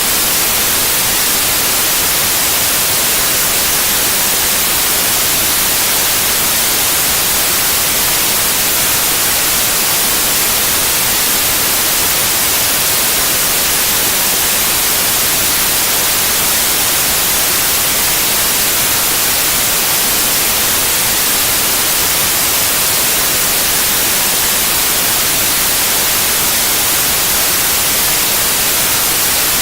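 Synthetic white noise test signal: a loud, steady hiss of even random noise across the whole frequency range, with no tone or rhythm, used for testing car-audio speakers and systems.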